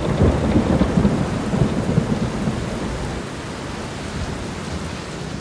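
Storm sounds: steady rain with a low rumble of thunder that dies away after about two and a half seconds.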